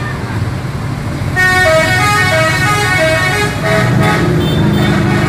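Tour bus's multi-tone 'telolet' musical horn playing a quick tune of changing notes, starting about a second and a half in, over the bus's running engine.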